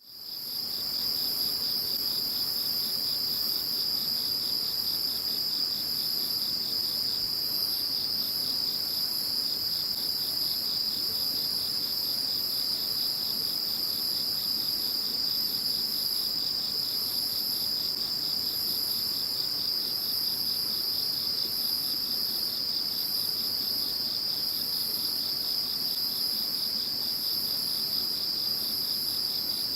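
A chorus of calling insects: one steady high trill carries over everything, with a rapidly pulsing call just below it and fainter, irregular chirping higher up. The sound fades in at the very start.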